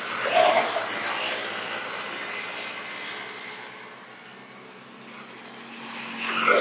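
Motorbikes passing close by on the bridge roadway: one swells up and fades about half a second in, and another builds to a louder peak near the end.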